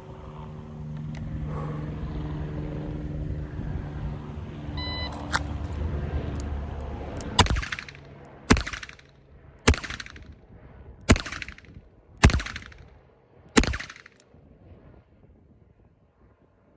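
A shot timer's start beep about five seconds in, then six revolver shots, a full cylinder fired at a steady pace about 1.2 seconds apart, each followed by a brief ring.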